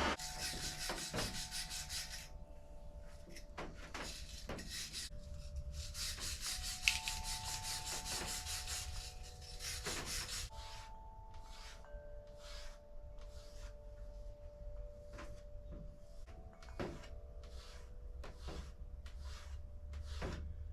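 Knife blade being sharpened by hand: steel rasping against an abrasive in repeated strokes. The strokes run quick and close together at first, then come singly, about one and a half a second, in the second half.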